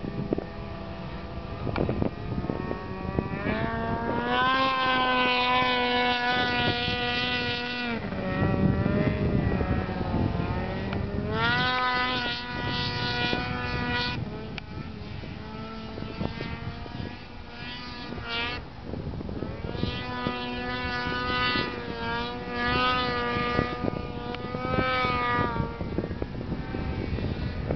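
Snowmobile engines revving up hard and holding at high revs under load on a hill climb, three times, each time the pitch climbing, holding for a few seconds, then dropping back.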